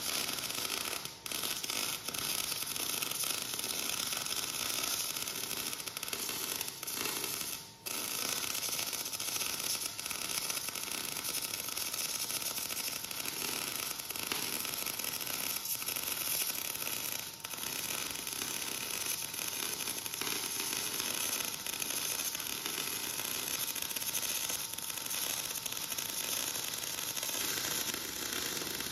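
Welding arc crackling steadily while a root pass is laid into the gap of a butt joint in thick steel plate, with a few brief stops in the first eight seconds.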